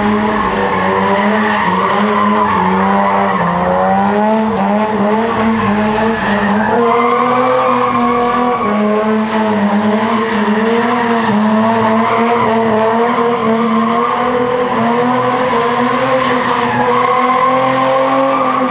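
Car doing donuts in a burnout: the engine is held at high revs, wavering slightly up and down, over continuous tire squeal.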